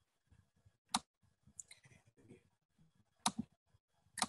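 Computer mouse clicks, sharp and close to the microphone: one about a second in, one a little past three seconds, and a quick double click at the end.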